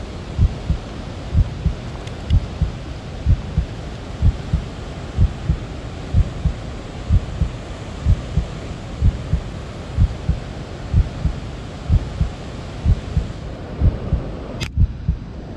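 Footsteps of a person walking slowly through shallow water over river stones, heard as dull regular thumps about twice a second through a body-worn camera, over a steady hiss. A single sharp click sounds near the end.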